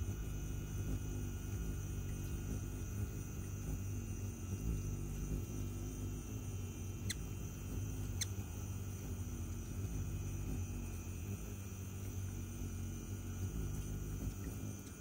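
Hummingbird's wings humming low and steady while it hovers at a hand-held nectar feeder, the pitch wavering as it shifts position. Two brief high clicks come about 7 and 8 seconds in.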